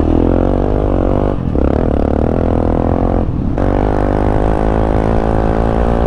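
Yamaha XT660R's 660 cc single-cylinder four-stroke engine pulling under throttle while riding, through an Akrapovič titanium exhaust fitted without its baffle. The note drops away briefly twice, about a second and a half in and again just after three seconds.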